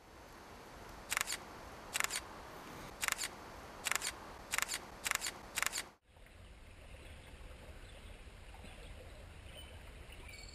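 DSLR shutter firing seven times at roughly one-second intervals, each shot a quick double click. About six seconds in it cuts off to a faint steady outdoor background with a low rumble.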